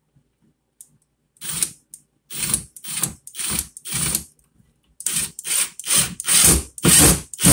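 Cordless driver running in short trigger bursts, about two a second, as it drives a screw for a cabinet-door soft-close hinge into wood. The bursts start about a second and a half in, pause briefly about four seconds in, then resume louder.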